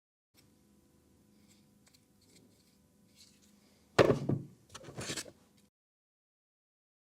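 Hard objects being handled: a few light clicks, then a loud knock about four seconds in and a second, weaker clatter about a second later.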